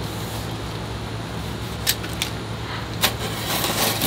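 Cardboard box and plastic packing wrap being handled: a few sharp crackles about two and three seconds in, then a louder stretch of crinkling rustle near the end, over a steady low hum.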